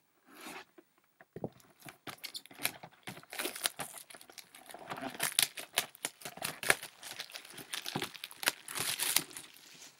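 Plastic shrink wrap being torn off a sealed cardboard box and crumpled by hand: a dense, irregular run of crackling and ripping that starts about a second in and carries on almost to the end.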